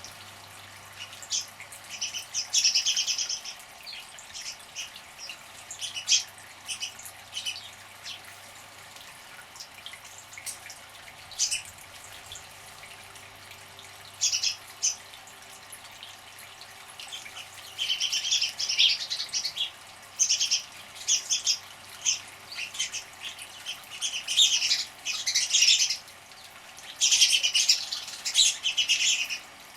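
Small birds bathing in a bird bath: repeated flurries of splashing and chirping, each lasting a second or two, coming several times with quieter gaps between.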